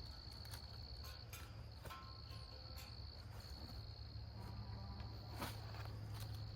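Insects, likely crickets, trilling: one steady high-pitched buzz that breaks off briefly about a second in and then carries on, with a few faint clicks.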